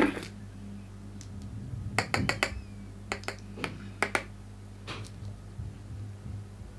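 A jar of Laura Mercier translucent loose powder being handled with a makeup brush: a run of sharp clicks and taps, a cluster of several about two seconds in, then scattered single ones.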